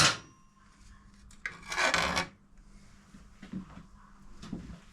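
A short metallic scrape, about a second long, as motorcycle parts are worked apart during dismantling. A few faint knocks follow.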